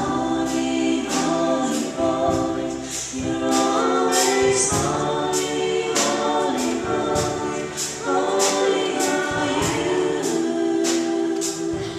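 Live praise and worship band: voices singing a sustained, slow melody over guitars and keyboard, with a steady beat of about two strokes a second.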